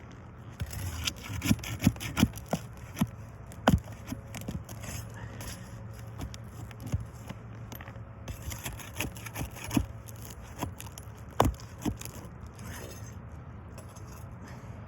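Scraping and irregular sharp clicks of a tool on asphalt roofing shingles as the roofing nails are worked loose and pulled out.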